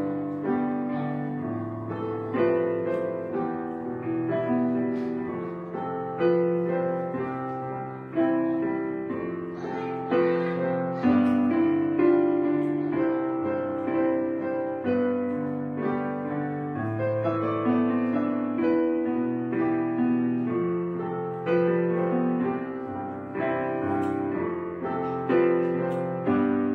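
Background piano music: slow chords struck every second or two, each left to fade before the next.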